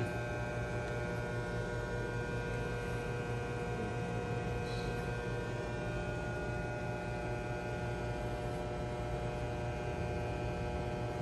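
Steady electrical hum made of several fixed, level tones over a low background noise, unchanging throughout.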